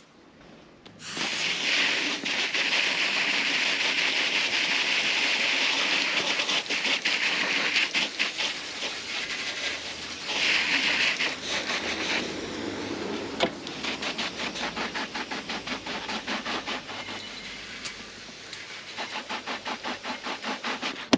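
Garden hose spray gun jetting water onto waxed-canvas motorcycle saddlebags: a steady hiss of spray and splashing that starts about a second in, surges briefly midway, and breaks into quick rapid pulses in the later part.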